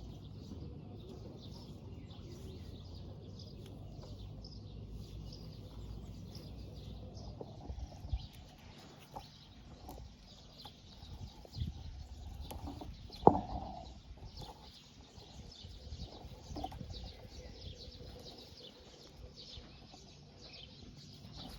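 Birds chirping with many short, high calls over a low steady rumble that fades after about eight seconds, with a few sharp knocks, the loudest about thirteen seconds in.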